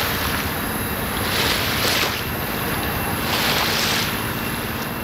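Wind on the microphone with small waves washing against the shore, a hiss that swells about every two seconds over a steady low rumble.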